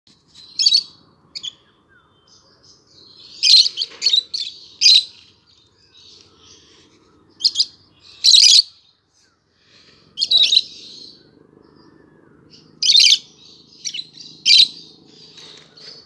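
Rosy-faced lovebirds giving short, shrill, high-pitched calls, about a dozen of them in small bouts with quiet gaps between.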